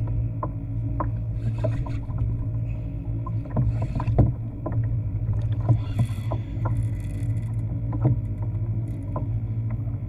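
Sounds of a fishing kayak on open water: a steady low hum with irregular sharp clicks and knocks, a few each second, and a short hiss about six seconds in.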